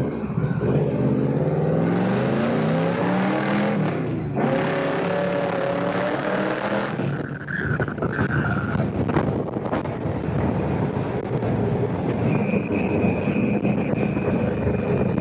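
Motorcycle engine accelerating hard from a stop, its pitch climbing, dropping once at a gear change about four seconds in, then climbing again. After that, wind rush at speed mostly covers the engine.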